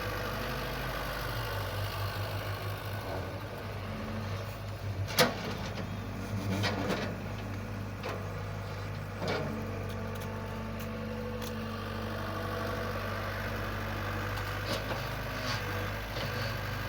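Excavator's diesel engine running steadily at a low hum, with a few sharp knocks from the digging. The loudest knock comes about five seconds in.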